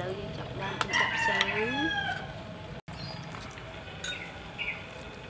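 A rooster crowing once, starting about a second in: a call of a little over a second that falls away at the end. A few light clinks of spoons against the bowls.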